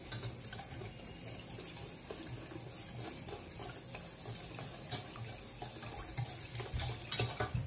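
Wire whisk beating a thin mixture of custard powder, sugar and water in a stainless steel saucepan: steady liquid swishing with light ticks of the whisk wires against the pan, a little louder near the end.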